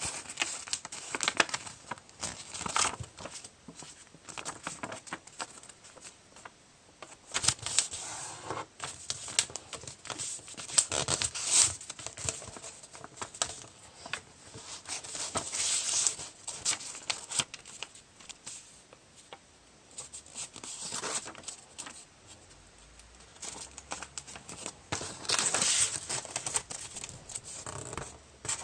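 A sheet of paper rustling and crinkling in irregular bursts as it is handled, folded and creased by hand to make a paper airplane.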